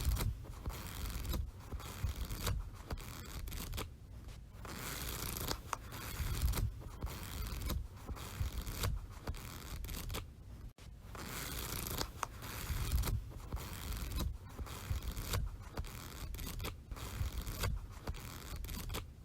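Sheets of notepad paper being handled: a run of short, irregular rustles and crinkles, roughly one or two a second, with a brief pause about ten seconds in.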